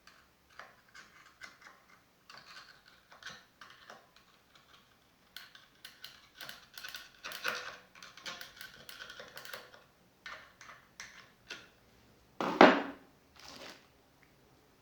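Irregular clicks and clatter of BMX rear-hub parts being handled and fitted together, with one louder knock about twelve and a half seconds in.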